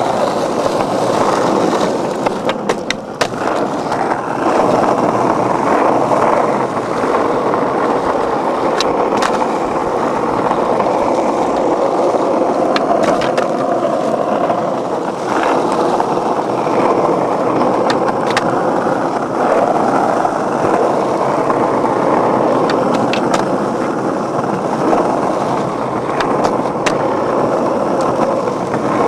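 Skateboard wheels rolling on concrete: a steady, loud rumble, broken by a few sharp clacks from the board.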